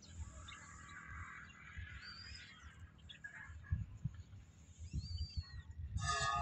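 Birds chirping a few times, short high calls that curve in pitch, over soft irregular low thumps. Near the end comes a short, clear-pitched call.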